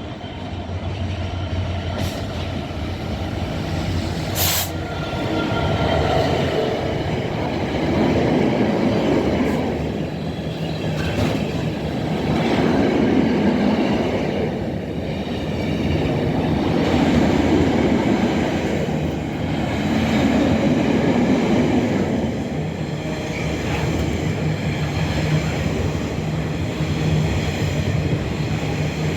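Class 66 diesel-hauled freight train, its container wagons rolling past on the rails. A steady rumble swells and eases every four to five seconds as the wagons go by, with some wheel squeal.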